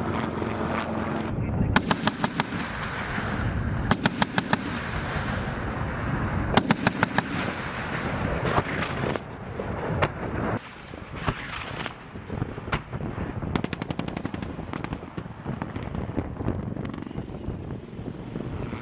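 Bursts of rapid automatic gunfire: four short volleys at about ten shots a second, with single shots between them, over a steady rumble.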